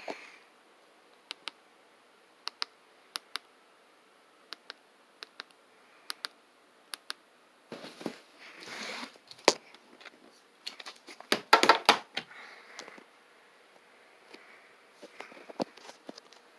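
Scattered sharp clicks, a few seconds apart, with two short bursts of rustling handling noise about eight and eleven seconds in.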